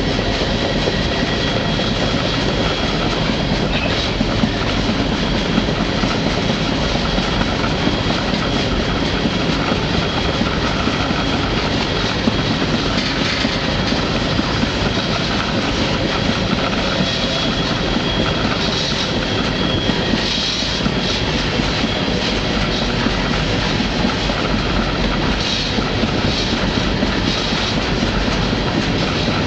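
Freight train rolling along, heard from aboard: a steady, loud rumble and rattle of wheels on the rails, with higher-pitched squeals coming and going through the second half.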